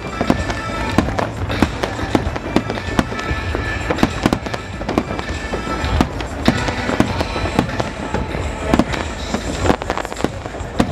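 Fireworks display: many sharp bangs and crackles in quick, irregular succession over a low rumble, with music playing underneath.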